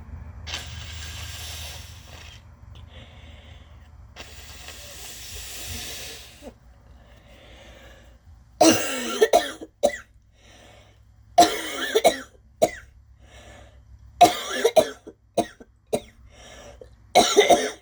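A woman coughing hard in four bouts, each a quick run of several harsh coughs, after two long breathy, hissing sounds near the start.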